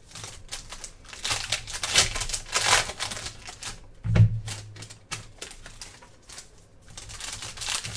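Foil trading-card pack crinkling as it is torn open, then the cards inside flicked and shuffled through by hand, in quick rustling strokes. There is a dull thump about four seconds in.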